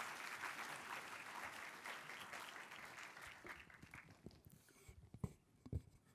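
Audience applauding, the clapping dying away about four seconds in. Near the end, a couple of low thumps as the lectern microphone is handled.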